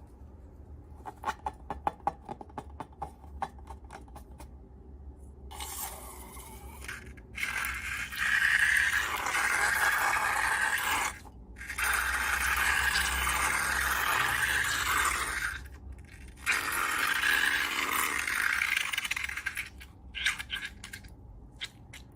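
Slime-making materials being handled: a run of small clicks and crackles, then three long stretches of steady, dense scraping and rustling, each a few seconds long, separated by short pauses.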